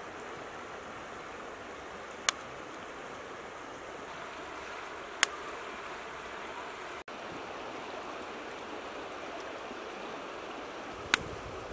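Shallow river flowing over stones, a steady rush of water, with three sharp clicks spaced several seconds apart and a split-second dropout in the middle.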